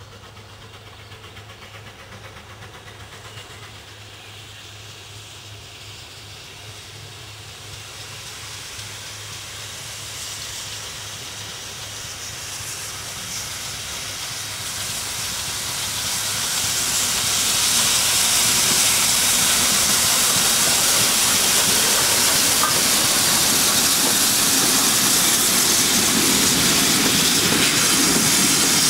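Great Western prairie tank steam locomotive approaching and passing close by. Its sound builds steadily, reaching a loud, steady hiss of steam about two-thirds of the way in.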